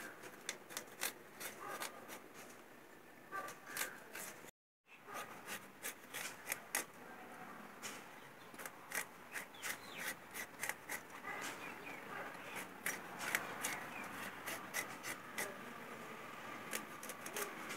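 A small knife scraping and peeling the skin off a lasia stalk: a quick, uneven run of short scrapes and clicks as the blade strips the peel. The sound cuts out for a moment about four and a half seconds in.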